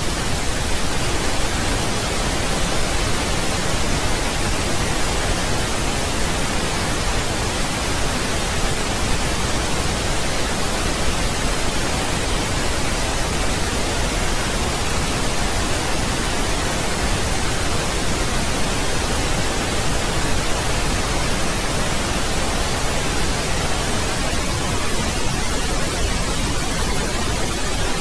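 Steady synthetic pink noise: an even, unchanging hiss spread across the whole range.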